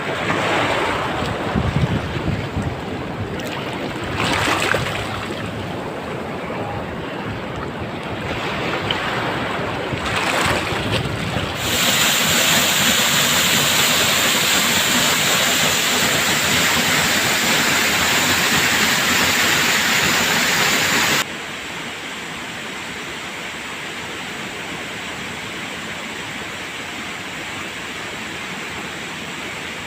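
Surf and rushing water, with wind buffeting the microphone in uneven gusts. Twice the sound changes abruptly: first to a louder, steady rush, then to a quieter one.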